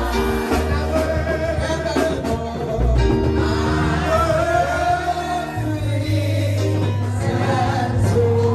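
Church worship music with singing over held bass notes and chords.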